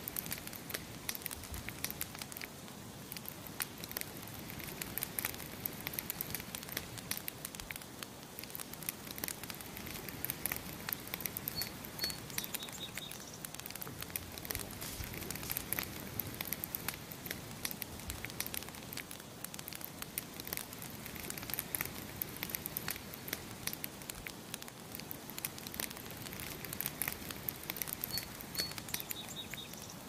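Campfire crackling, with a steady run of small irregular pops and snaps. A bird chirps briefly twice, a couple of short high notes and a quick trill, about twelve seconds in and again near the end.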